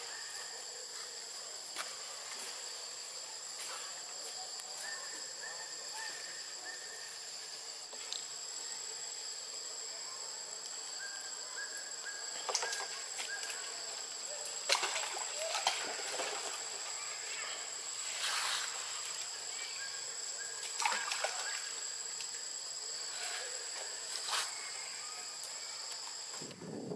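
Steady high-pitched insect drone at two constant pitches, with a few short scratchy rustles in the second half.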